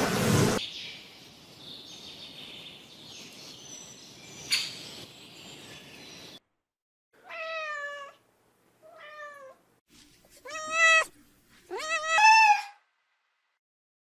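A tabby kitten meowing: four short, high mews, the last two loudest.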